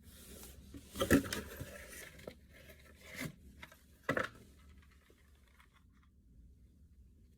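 Packaging being handled and torn open: rustling and tearing, with three louder scrapes about one, three and four seconds in, dying away near the end.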